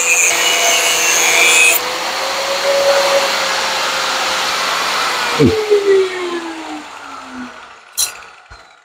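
Electric angle grinder with a cut-off disc cutting through a steel fender stay for about the first two seconds. It then runs free, is switched off about five seconds in, and winds down with a falling whine. A single metal clink comes near the end.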